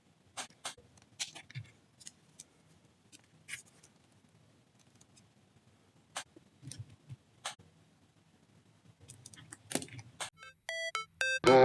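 Scattered small clicks and taps of hard plastic action-figure parts being handled and fitted, in irregular ones and twos with a quicker cluster near the end. Electronic music with high beeping tones starts just before the end.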